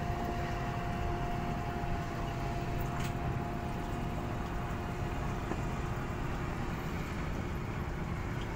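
Steady low rumble of a boat's motor running, heard from on board.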